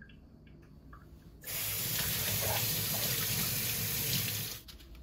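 Kitchen faucet running over eggplants being rinsed by hand, turned on about a second and a half in and shut off near the end.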